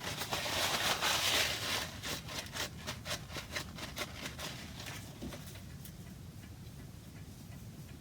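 Wiping and rubbing over carved wood while dark water stain is worked in: a dense scrubbing for about two seconds, then a run of short strokes about three a second, dying away about five seconds in.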